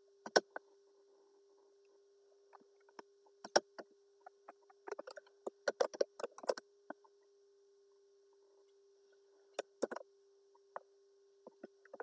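Computer keyboard keystrokes as a spreadsheet formula is typed: scattered single key clicks, with a quick run of several keys about halfway through. A faint steady hum sits underneath.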